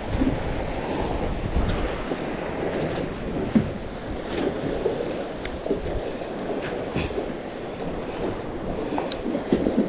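Small waves lapping at the water's edge, with wind buffeting the microphone that eases off about two seconds in, and a few faint ticks scattered through.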